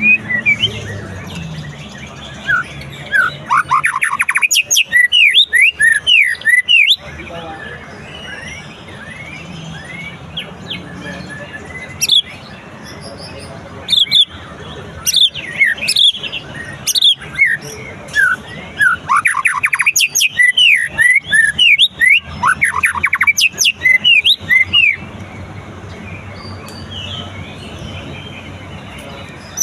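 White-rumped shama (murai batu) singing after its moult: three long, loud phrases of rapid sweeping whistled notes, with softer chirps between them.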